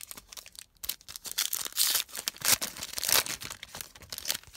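Foil wrapper of a Panini Prizm baseball card pack being torn open and crinkled by hand. A dense crackle starts about a second in, is loudest in the middle, and fades near the end.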